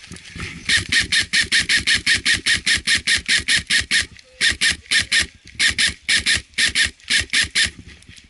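Airsoft rifle firing a long series of rapid single shots, about four a second, in several strings with short breaks between them.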